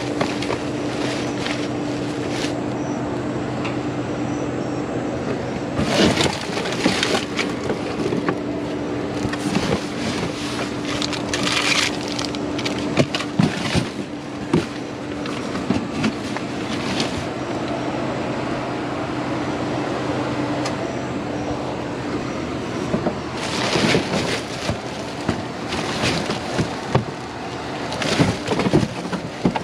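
Plastic trash bags crinkling and cardboard boxes scraping and knocking as they are rummaged through inside a steel dumpster, in irregular bursts. Under it runs a steady low mechanical hum that stops a little past two-thirds of the way through.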